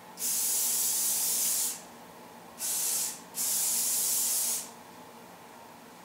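Sebastian Shaper aerosol hairspray can spraying three times: a long spray of about a second and a half, a short one of about half a second, then another long spray of about a second.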